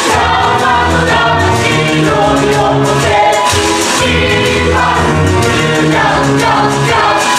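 Music: a stage-musical cast singing together in chorus over a loud band backing with a steady, rhythmic bass line.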